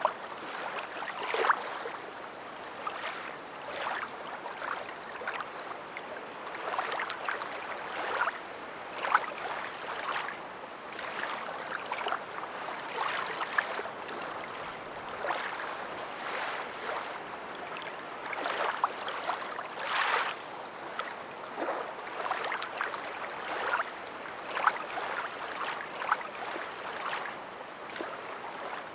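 Water lapping and splashing, with irregular small splashes every second or so over a steady wash.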